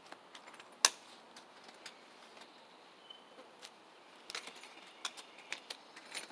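Small metallic jingles and clicks from keys on a neck lanyard, bunched into a run between about four and six seconds in. There is a single sharp click about a second in, the loudest sound.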